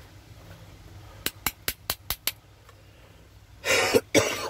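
Six quick sharp taps as the parts of an electric fan motor are handled, then a person coughs twice, louder than the taps.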